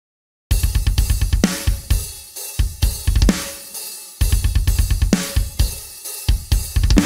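Heavy metal riff on an Epiphone Les Paul Classic Worn electric guitar through a distorted amp simulation, played over a drum backing track with fast bass drum, snare and cymbals. It starts suddenly about half a second in, and the phrase begins again a little past halfway.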